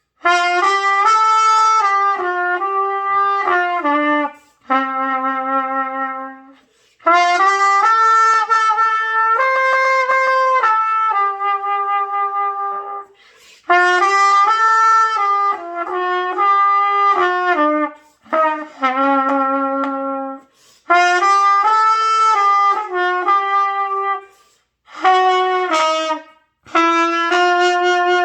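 Solo trumpet playing a slow melody of held notes that step up and down in pitch, in phrases with short breaks for breath between them.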